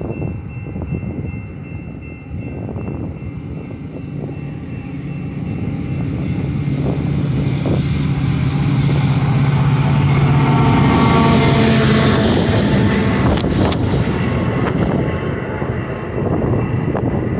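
Metra commuter train arriving: the diesel locomotive's engine and its wheels on the rails grow louder as it draws in, and the sound is loudest about ten to twelve seconds in as the locomotive passes. After that the stainless-steel bilevel coaches roll by.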